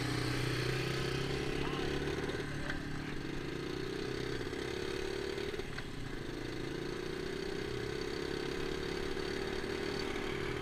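Small four-stroke single-cylinder engine of a 1975 Honda Mini Trail accelerating hard from a standing start. Its pitch climbs, drops at a gear change about two and a half seconds in, climbs again until a second shift near six seconds, then holds steady at full speed.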